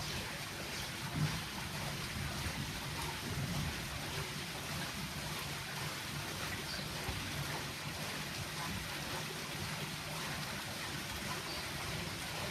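Brook water rushing steadily, with a low rumble underneath and a brief louder splash about a second in.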